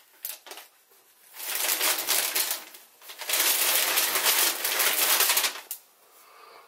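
Shoebox tissue paper rustling and crinkling in two long bursts as a sneaker is pulled out of its wrapping.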